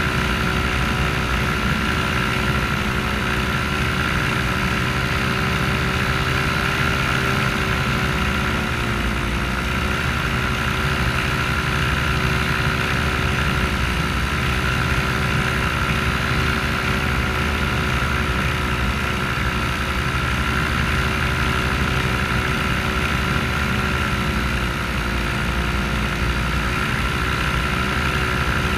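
Paramotor engine and propeller running steadily in flight, its pitch dipping slightly a few times.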